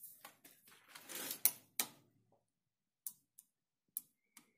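Scattered soft clicks and rustling, handling noise from a hand-held phone camera: a cluster with a brief rustle in the first two seconds, then four lone clicks near the end.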